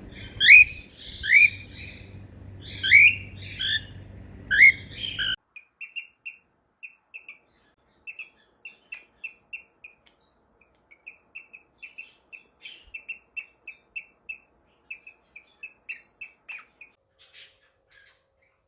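Pet parrots calling: about five loud, rising squawks, then an abrupt switch about five seconds in to a quieter, long run of short chirps, several a second, with a few higher calls near the end.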